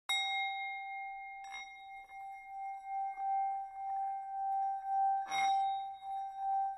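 Himalayan singing bowls struck three times: at the start, again about a second and a half in, and again about five seconds in. Their tone rings on between strikes, wavering slowly in loudness.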